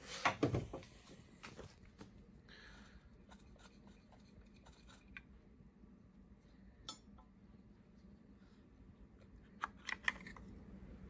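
Faint clinks and scrapes of small metal engine parts handled by hand on a bare LS V8 block, with a short burst of rattling clicks at the start and two sharp clicks near the end.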